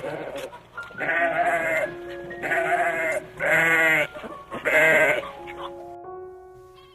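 A bleating farm animal calls four times, each call about a second long with a wavering, quavering pitch, over background music.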